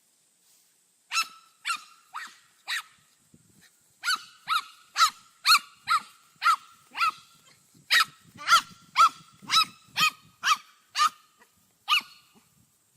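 A dog barking repeatedly in short, high yaps. Four barks come, then a brief pause, then a steady run of about two barks a second.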